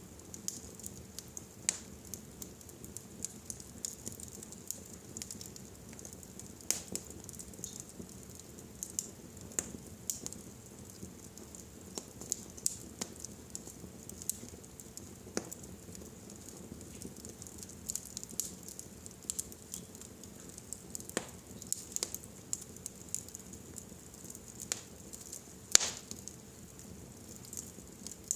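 Wood fire burning in a fireplace, crackling and popping at irregular intervals, with a low steady rumble under it. The loudest pop comes near the end.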